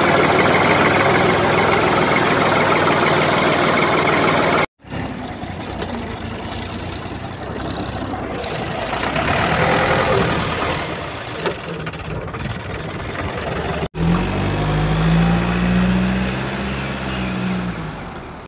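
Dubbed vehicle engine sound effects in three pieces, cut hard against each other: a dense rattling engine running for about five seconds, then a rougher, noisier engine stretch, then an engine whose deep pitched note swells and falls away near the end.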